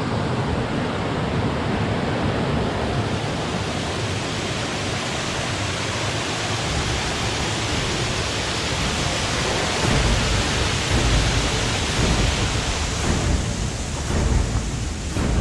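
Steady rushing of water from a glen stream or waterfall. A deeper, uneven rumble joins about ten seconds in.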